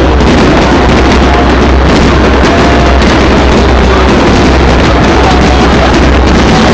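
Fireworks barrage: a dense, continuous crackle of bursts with a steady deep rumble underneath, very loud throughout.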